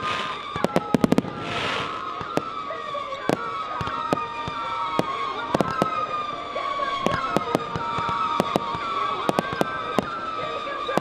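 Aerial fireworks going off continuously: rapid sharp bangs and crackling reports, some in quick clusters, over a high whistling tone that keeps sliding slightly down in pitch.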